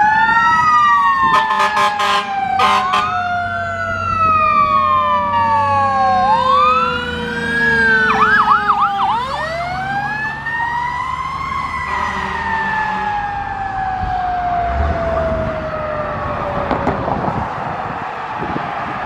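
Fire truck siren wailing in long, slow rising and falling sweeps, switching to a rapid yelp for about a second around eight seconds in. Two short horn blasts sound near the start, with the truck's engine rumbling underneath as it drives past.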